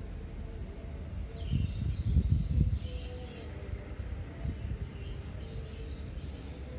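Outdoor ambience: small birds chirping now and then, with short falling calls, over a low rumble that swells briefly about two seconds in.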